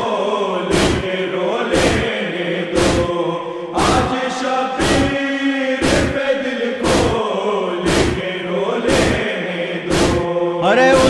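Men's voices chanting a drawn-out refrain of a Shia nauha in unison, kept in time by sharp matam strikes, hands beating on chests, about once a second.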